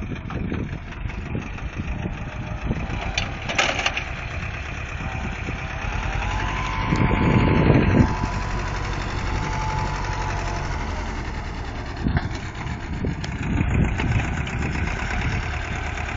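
Small farm tractor's diesel engine running steadily as it pulls a reversible mouldboard plough through the soil, growing louder about seven seconds in as the tractor comes close. A faint whine sounds over the engine in the middle.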